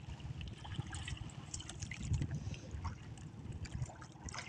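Faint water trickling and lapping against the hull of a small outrigger boat, with scattered light ticks and splashes over a low rumble.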